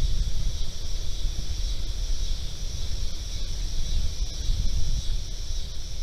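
Wind buffeting the microphone as a low, uneven rumble, over a steady high-pitched insect chorus.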